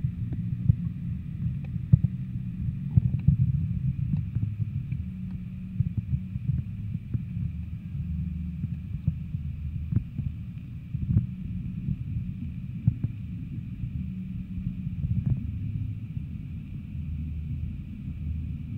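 Muffled low rumble with scattered small clicks and knocks, picked up by a camera held underwater: water movement and handling noise against the submerged housing.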